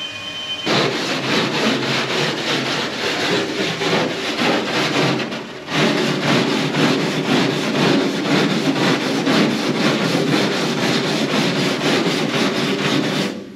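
Hand wire brush scrubbed back and forth over a bare metal car body panel in rapid repeated strokes, starting just under a second in, with a brief pause about five and a half seconds in. The brushing cleans the surface to prepare it for lead loading.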